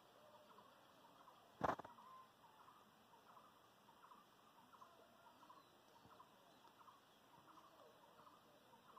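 Near silence with faint short animal calls repeating throughout, and one sudden loud knock or bump about two seconds in.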